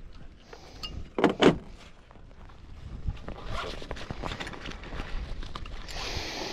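Fishing tackle being rummaged through: rustling, small clicks and knocks, with a louder double knock about a second in.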